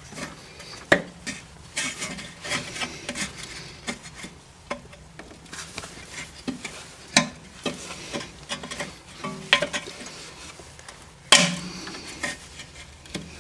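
Hands working a parking-brake cable back into a rear brake caliper: irregular light clicks, scrapes and rattles of metal parts, with a sharper knock about eleven seconds in.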